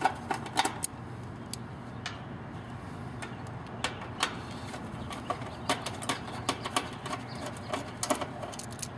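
A nut driver turning out the 5/16 hex-head screw that holds an air-conditioner contactor to its sheet-metal mounting plate: scattered, irregular metal clicks and taps over a steady low hum.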